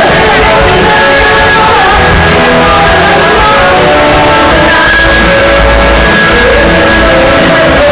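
Live rock band playing loud and steady, with electric guitars, drums and a woman singing.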